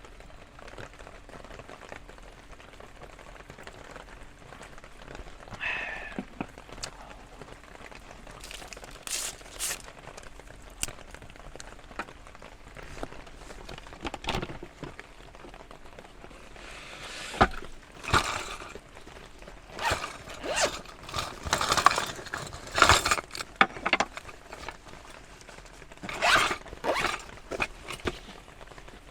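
Steady hiss of rain with irregular rustling, crinkling and knocking of things being handled, busiest in the second half.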